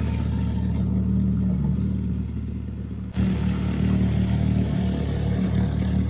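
Engine of a compact ride-on tractor running steadily under load as it carries a pile of cut branches, with a brief drop and jump in the sound about three seconds in.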